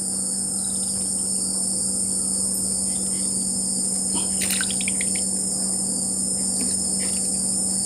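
Steady, high-pitched night chorus of crickets and other insects, with a few short calls about four to five seconds in.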